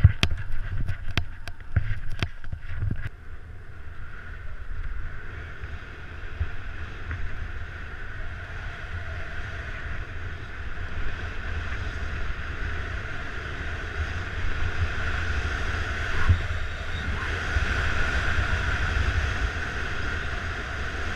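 Skis sliding and scraping over packed, groomed snow: a steady hiss, with wind buffeting the microphone as a low rumble. A quick string of sharp clicks and knocks comes in the first three seconds.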